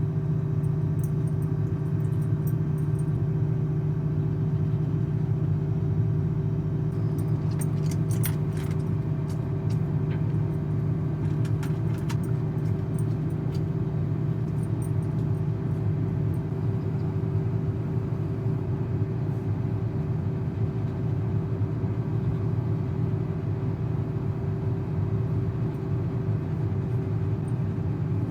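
Combine harvester engine running at a steady pitch, with a few light clicks and rattles about eight and twelve seconds in.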